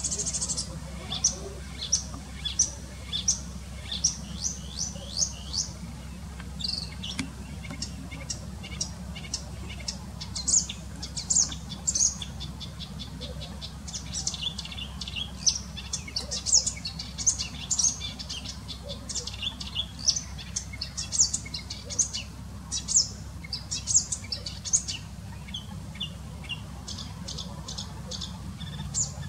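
Acrocephalus warbler singing: a fast, energetic run of short high chirps and trills in long phrases, broken by a couple of brief pauses.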